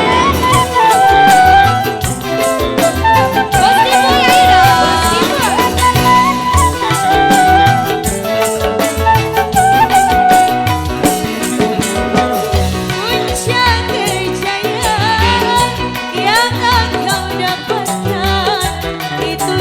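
Band music with a wavering, ornamented melody line over a busy, steady drum rhythm.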